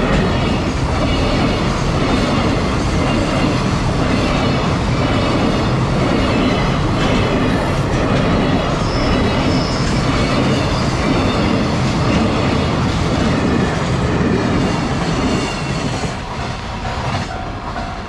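Container flatcars of a freight train rolling past a level crossing, with steady wheel rumble and clickety-clack over the rail joints, light wheel squeal and the crossing's warning bell ringing. The noise drops away near the end as the last wagon clears.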